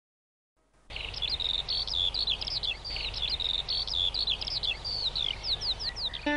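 Songbirds singing a run of quick, high whistled phrases and trills over a steady low background noise, starting about a second in.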